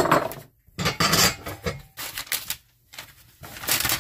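A kitchen towel rustling and rubbing in several short bursts, with brief pauses between them, as it is handled and pulled off the resting bread dough.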